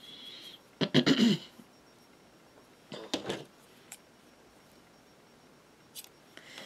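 A person coughs once about a second in and makes a softer throat sound a couple of seconds later, then scissors give faint snips as they cut the crochet yarn, once midway and again near the end.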